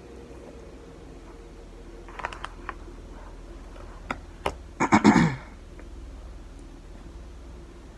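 A woman eating a chunk of cornstarch, with dry, sharp crunches in the mouth: a few single crunches, then a louder cluster of crunching about five seconds in.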